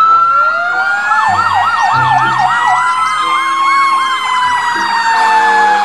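Several fire engine sirens sounding at once: a slow wail that rises and then falls away, overlapped by a fast yelp sweeping up and down several times a second.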